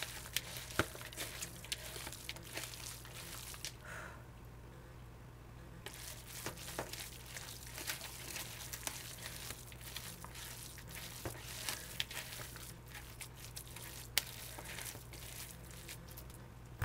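Bare hands kneading and squeezing a raw ground-beef meatloaf mixture in a bowl: faint, irregular small clicks and rustles, with a brief lull about four seconds in.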